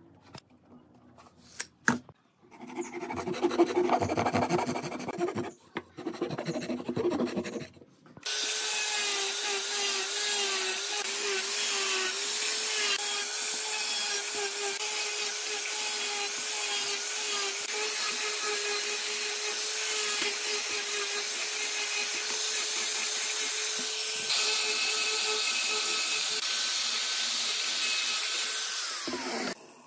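Angle grinder with a sanding disc starting about eight seconds in and running steadily with a constant whine as it sands wood, then stopping sharply just before the end. Before it, a few seconds of rough scraping.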